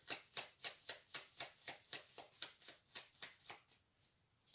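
A tarot deck being shuffled by hand: a quick, even patter of card strokes, about four a second, that grows fainter and stops near the end.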